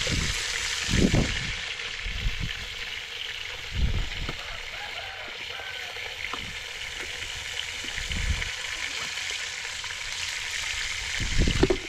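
Battered small shrimp and fish frying in hot oil, a steady sizzle. A few dull low thumps break in, the loudest about a second in and near the end.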